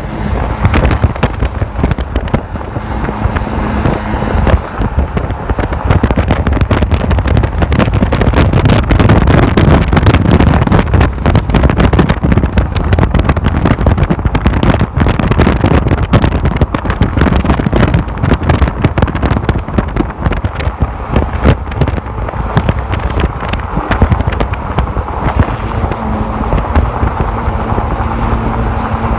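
Off-road desert race truck's engine running hard as it drives past at a distance, loudest about a third of the way in, with wind buffeting the microphone.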